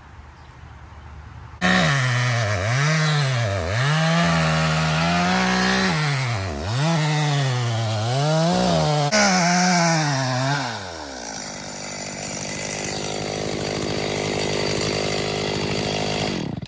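Two-stroke chainsaw running hard, its pitch repeatedly dropping and climbing back. It starts suddenly, turns into a steadier sound with no clear pitch from about 11 seconds in, and cuts off abruptly near the end.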